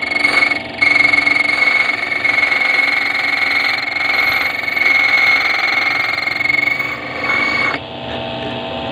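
Key-duplicating machine cutting a key blank: a loud, steady high whine of the cutter on metal. It breaks off briefly just under a second in and drops down near the end.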